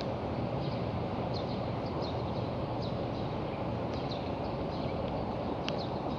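Steady outdoor background noise with a low rumble, with short high chirps of small birds scattered throughout.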